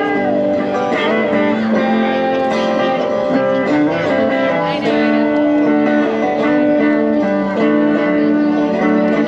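Guitar playing a melody of long held notes over chords, with some notes sliding in pitch.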